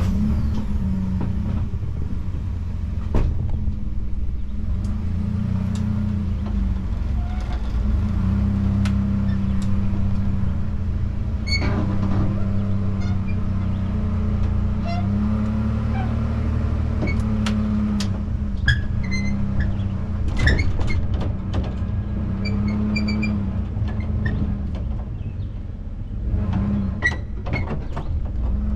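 Pickup truck engine running at low speed while moving a trailer, its note rising and falling a little, with scattered clanks and rattles.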